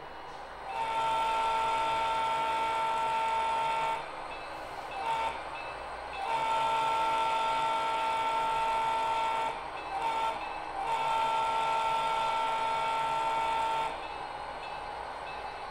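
HO-scale diesel locomotive's onboard sound sounding its horn for the grade crossing: three long blasts of about three seconds each, with short toots between them, over the locomotive's low running rumble.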